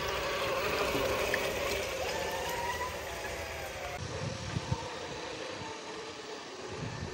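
Traxxas TRX-6 Hauler RC truck's electric motor and drivetrain whining as it wades through muddy water, with splashing. After a cut about four seconds in, it crawls along a dirt trail, with two light knocks in quick succession.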